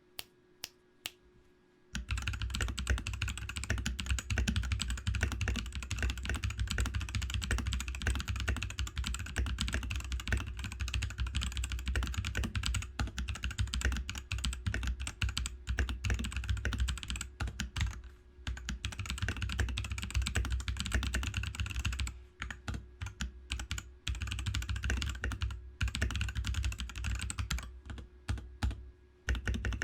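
Ozone Tactical mechanical keyboard being typed on as a case-dampening sound test. A few single key clicks come first, then fast continuous typing starts about two seconds in, with a few brief pauses.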